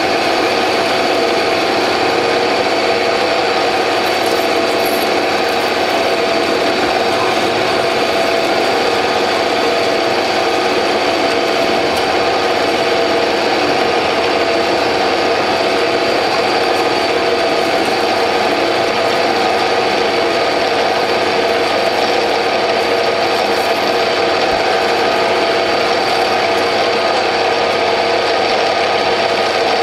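Bernardo P 600 G metal lathe running while a parting-off blade cuts steadily into a spinning stainless-steel bar: an even machining sound over the machine's steady whine, with no chatter.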